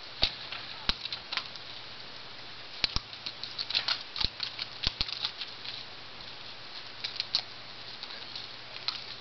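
Thoroughbred racehorse's hooves stepping down a horse trailer's ramp and onto concrete: an irregular scatter of sharp knocks, thickest about three to five seconds in.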